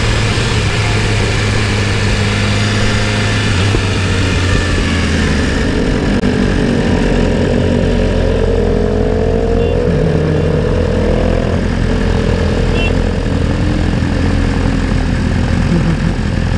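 BMW S1000RR inline-four engine running under wind rush at riding speed. About six seconds in, the wind falls away as the bike slows to a roll among other sport motorcycles, with engines near idle and one long rising rev around the middle.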